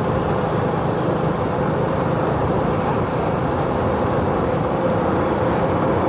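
Suzuki Smash 115 motorcycle's single-cylinder four-stroke engine running at a steady cruise, mixed with wind and road noise, heard from on board.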